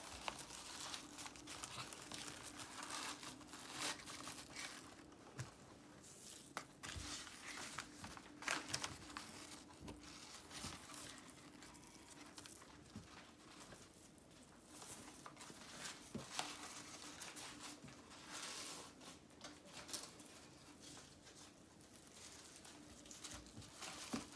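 Faint rustling and crinkling of newspaper in short irregular bursts as a newspaper-wrapped cracker is handled and ribbon is tied around its scrunched ends.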